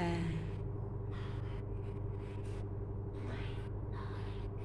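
Soft, short swishes about a second apart as hands work yarn on a crochet hook, over a steady low hum. A brief voiced sound comes right at the start.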